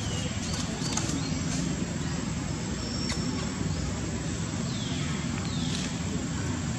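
Outdoor ambience: a steady low rumble, with a few faint high chirps and short downward whistles scattered through it.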